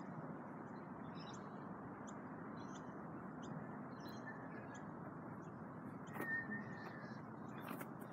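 Birds chirping in short, high calls, one or two a second, over a steady outdoor background noise.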